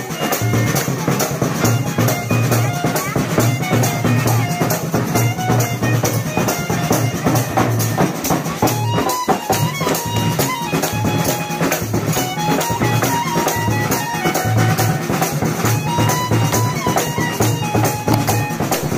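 Music with a steady drum beat and a stepping melody line, with a very brief break about nine seconds in.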